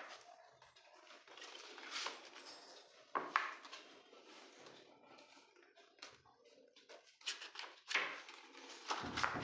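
Irregular rustling and light knocks of objects being handled close to the microphone, with sharper clicks about three seconds in and several more near the end.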